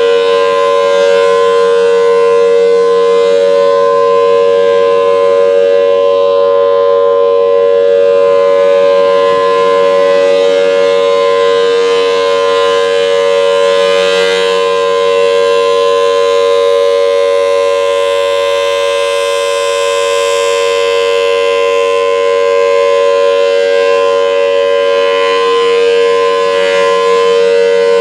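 Federal Signal Thunderbolt 1003 outdoor warning siren sounding its Alert signal: one loud steady tone that holds its pitch without winding up or down.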